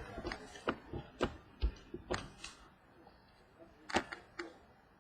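2015 Valor football trading cards being handled and flipped through by hand: a run of light clicks and snaps of card against card, thinning out after about two seconds, with a couple more about four seconds in.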